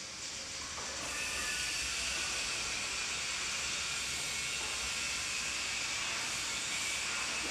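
Steady hiss of noise with no distinct events, settling to an even level about a second in.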